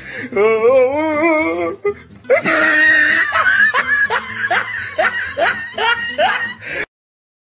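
Loud laughter. A long, wavering laugh comes first, then a run of short, rising 'ha' bursts, and it cuts off abruptly about a second before the end.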